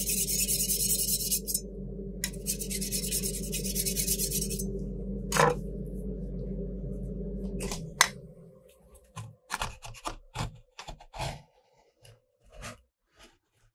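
Metal spatulas scraping across the frozen plate of a rolled-ice-cream machine in two long rasping strokes, over the steady hum of the plate's cooling unit. About eight seconds in the hum stops, and only scattered light taps and scrapes follow.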